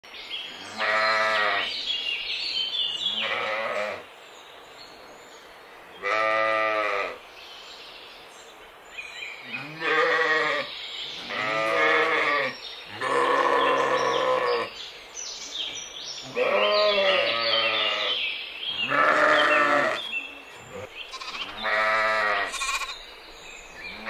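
Sheep bleating over and over: about nine drawn-out bleats, each roughly a second long, a second or two apart, at varying pitch.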